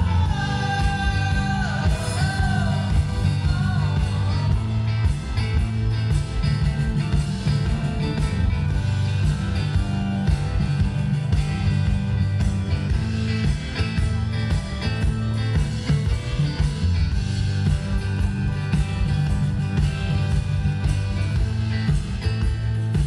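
A rock band playing live, with heavy bass and drums and a singer's voice gliding through a line in the first few seconds.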